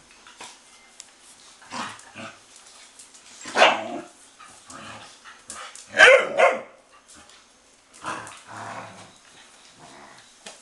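Several young dogs play-fighting, with short barks and growls coming in bursts; the loudest barks are about three and a half seconds in and a quick pair about six seconds in.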